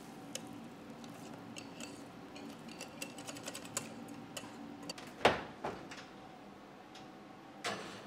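Thin stream of batter pouring into a metal cake pan, with many small irregular ticks and pops from dripping batter and bursting bubbles. A sharp knock about five seconds in is the loudest sound. Near the end the metal pan clanks onto the oven rack.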